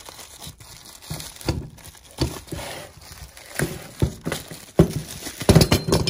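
Plastic bubble wrap crinkling and rustling in irregular bursts as a new RV door latch and lock is unwrapped by hand, loudest near the end.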